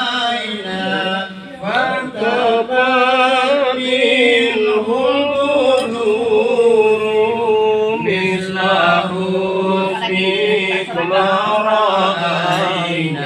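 Islamic religious chanting in a melodic, ornamented style, with long held notes that waver in pitch, dropping to a lower note about eight seconds in.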